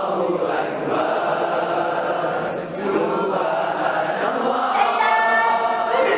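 A large group of teenagers singing or chanting together, many voices at once; near the end one clear voice holds a note above the rest.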